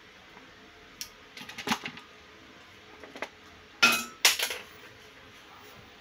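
Small metal clinks and clicks as long-nose pliers and metal BNC connector parts are handled: a single click, a quick cluster of clinks, then two sharper, louder clinks a little past the middle.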